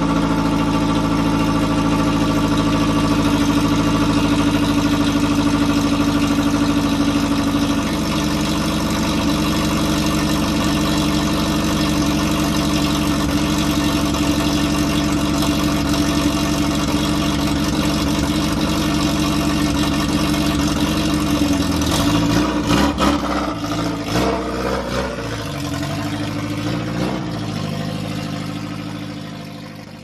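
1969 Ford Capri's engine idling steadily, its note shifting slightly after a few seconds. About three-quarters of the way through it turns uneven and wavering as the car pulls away, fading as it goes.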